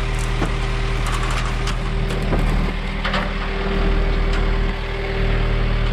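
A vehicle engine running steadily at idle, with a few light knocks and clanks.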